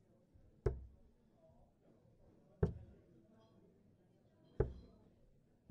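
Three darts hitting a Winmau Blade 4 bristle dartboard, one sharp thud about every two seconds: a full three-dart visit.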